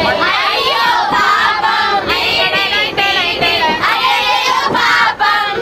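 Several voices singing a song together, as in a round of antakshari, the Indian song-chain game.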